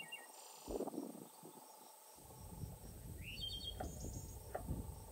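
Rural outdoor ambience with insects buzzing steadily and a bird chirping briefly about three seconds in. Near the end come a few slow, sharp taps of a knife on a wooden cutting board.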